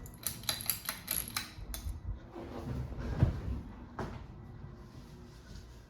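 Mainstays ceiling fan running on its high setting, with a faint steady hum. Quick sharp rattling clicks come through the first two seconds, then a knock a little after three seconds and one more click about a second later.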